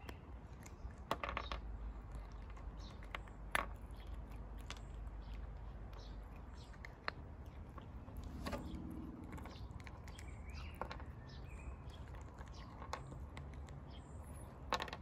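Small dog licking and chewing at a melting ice cube and its meltwater on wooden deck boards: irregular wet smacks and clicks, a few of them sharper, over a low steady rumble.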